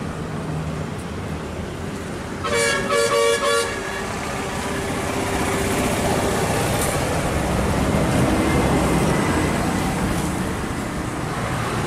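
Road traffic running steadily, with a vehicle horn honking a quick series of short toots for about a second, a few seconds in. The traffic noise swells in the second half as a vehicle passes.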